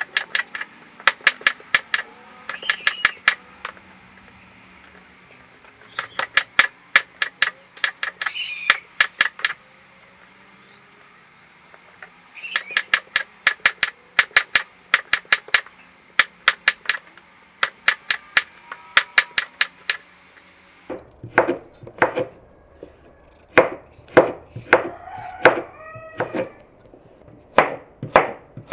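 Knife chopping vegetables on a cutting board in quick runs of about five strokes a second, with short pauses between the runs. From about two-thirds of the way in, the strokes come slower and sound heavier and deeper.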